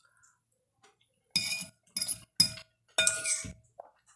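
Metal fork clinking and scraping against a glass plate four times in about two seconds, each stroke leaving a short ring.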